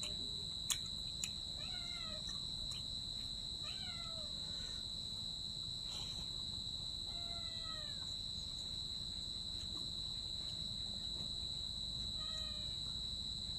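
A cat meowing four times, spaced out, each meow falling in pitch at its end, over a steady high-pitched whine and a low hum.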